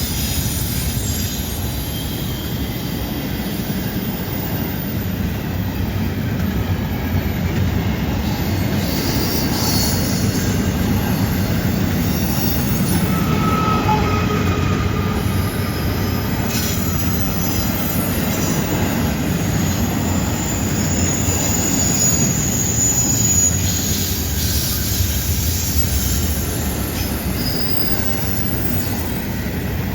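Freight cars of a CN intermodal train rolling past on curved track: a steady rumble and rattle of wheels on rail, with faint flange squeals that come and go several times.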